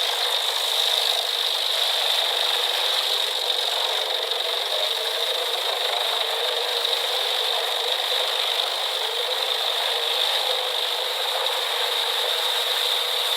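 Industrial drum wood chipper running steadily: a constant mechanical rattle with a steady high whine over it and no low rumble.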